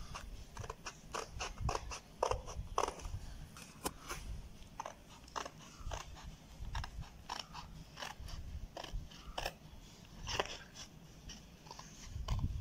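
Scissors snipping through white card board along a curved line, a string of short crisp cuts at an irregular pace over a low rumble.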